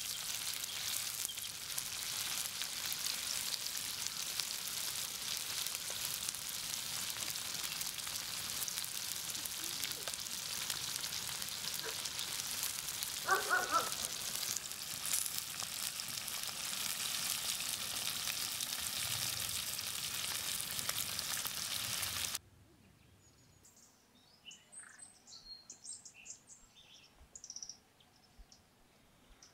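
Flour-coated carp pieces sizzling steadily as they deep-fry in hot oil in a pan, with a brief clatter of the wooden spatula against the fish a little before halfway. The frying cuts off suddenly about three-quarters of the way through, leaving faint bird chirps in a forest.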